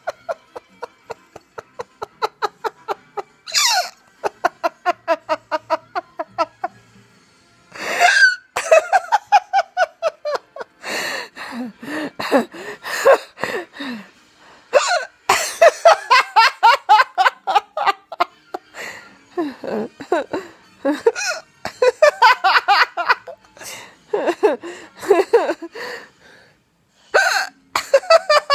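A young child giggling in long runs of quick, high laughs, about four a second, with a few sharp hiccups breaking in between the runs.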